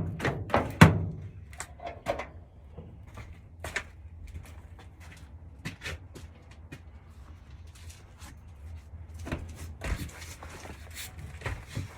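Clutch pedal and linkage being worked by hand, clunking and knocking: a few loud knocks in the first second, then scattered lighter clicks and knocks over a low steady hum.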